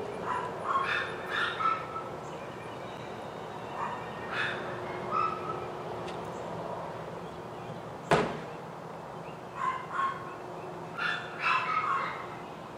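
A dog barking several times in short clusters, with one sharp knock about eight seconds in.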